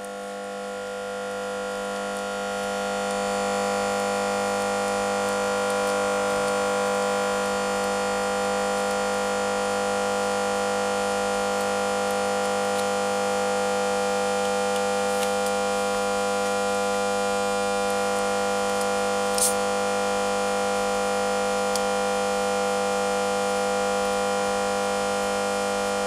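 A steady hum or drone of several unchanging pitches, swelling in over the first few seconds and then holding level, with a faint click about three quarters of the way through.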